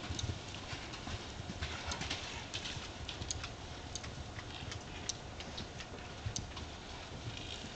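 Horses galloping and cantering on a dirt paddock, their hoofbeats falling in an irregular patter of thuds, with wind rumbling on the microphone.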